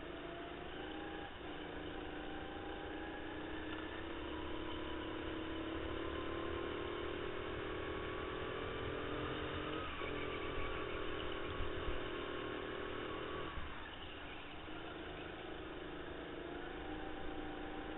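Racing go-kart's motor heard from on board, pulling hard with its pitch climbing slowly along the straights. It drops sharply when the throttle lifts for the corners, about ten seconds in and again a few seconds later, then climbs once more.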